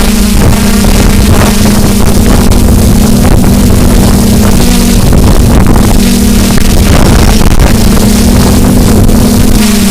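DJI F450 Flame Wheel quadcopter's motors and propellers buzzing steadily in flight, with heavy wind buffeting the microphone.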